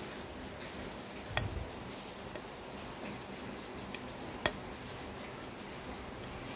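A cutter blade scraping the circuit board of an LED bulb clean, heard as three sharp ticks, one about a second and a half in and two close together around four seconds in, over a low steady hiss.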